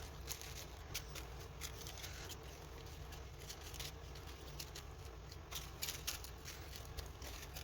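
Small plastic bags of diamond-painting rhinestone drills being sorted through by hand: scattered faint crinkles and light clicks.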